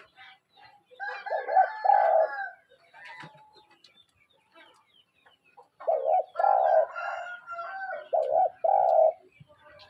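Spotted dove cooing: two phrases of low, hollow coos, the first about a second in and a longer one of four or five notes starting about six seconds in.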